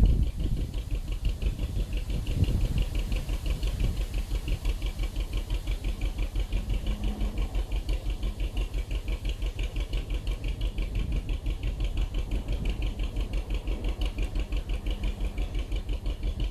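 The narrowboat's diesel engine running at a slow, steady cruising speed, an even beat of several pulses a second.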